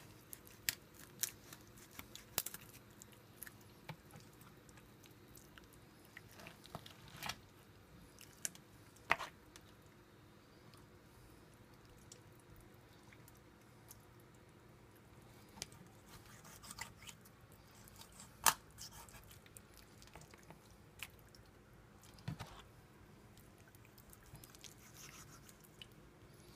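Dull knife cutting into a raw whole chicken around the breastbone: scattered soft wet squishes and small crunches of cartilage at irregular intervals, with a sharper crack about two-thirds of the way through.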